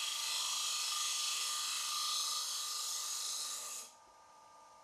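Turnmaster square high-speed steel cutter in shear-cut position taking a finishing cut inside a wooden bowl spinning on a wood lathe: a steady hissing scrape that stops suddenly near the end as the tool comes off the wood, leaving only the faint sound of the lathe still running.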